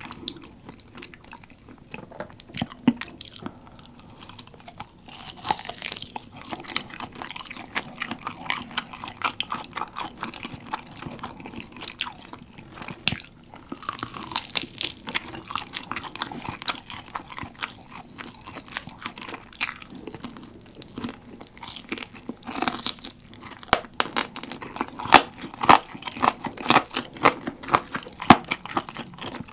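Close-miked chewing and crunching of sauce-coated fried chicken: crisp bites and crackling chews throughout, coming thicker and louder near the end.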